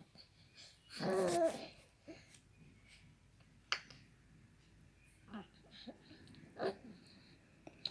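Fart-like noises from a baby sucking: one longer, wavering one about a second in, then a sharp click and two short ones later on.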